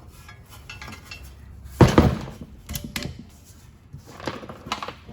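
A loose bolt clinking and rattling inside a steel exhaust header tube as it is worked out, with one loud metallic clank about two seconds in and lighter clicks after it.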